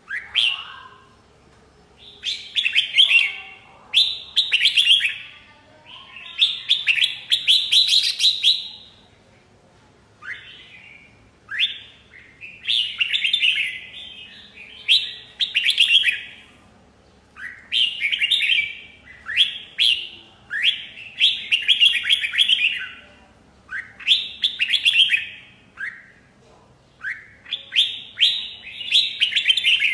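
Red-whiskered bulbul singing: repeated bursts of quick, chattering notes, each phrase lasting up to about two seconds, with short pauses between them.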